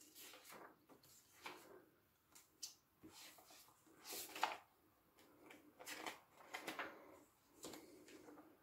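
Faint rustling of paper as pages of a thick hardcover book are turned and brushed by hand: several soft, brief page turns.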